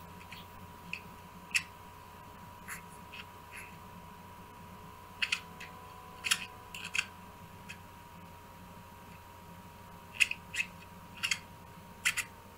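Scattered sharp clicks, some single and some in quick clusters of two to four, over a steady faint hum with a thin high tone.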